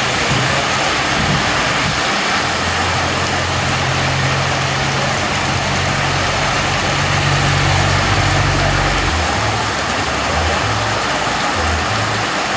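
Heavy rain pouring onto a flooded street, a loud steady hiss. Through the rain a car engine runs low and steady as a car drives slowly past, fading out about three-quarters of the way through.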